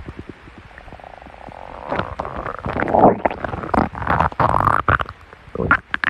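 A person's stomach growling: a faint fast rattle about a second in swells into loud, irregular gurgles, easing off just after five seconds before one more short gurgle near the end.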